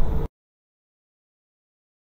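Low road and engine rumble inside a semi truck's cab, with a steady hum, that cuts off abruptly a moment in; then total silence.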